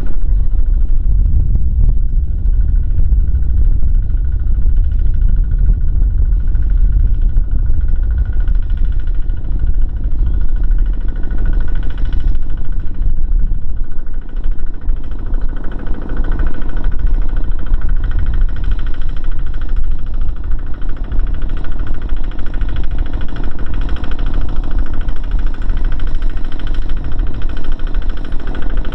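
Single-cylinder diesel engines of Kubota two-wheel walking tractors running steadily under load as they pull passenger-laden trailers, a loud, continuous low rumble.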